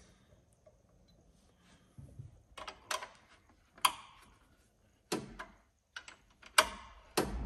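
Combination spanner on a bolt of a gas boiler's fan housing: about half a dozen sharp clicks and knocks of the tool against the metal, starting about two seconds in, the loudest near the end.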